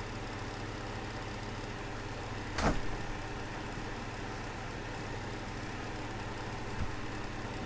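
A click-type torque wrench gives a single sharp click about two and a half seconds in as it breaks at its set torque. A faint knock follows later, over a steady low shop hum.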